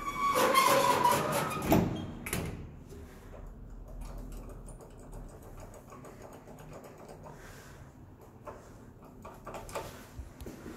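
Old lift's metal landing and car doors closing: a squeal, then a loud metal bang about two seconds in and a second knock just after. Lighter clicks and knocks follow, with a small cluster near the end.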